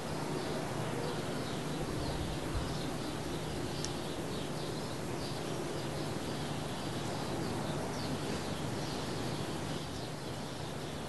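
Outdoor ambience: small birds chirping repeatedly over a steady low hum and background noise.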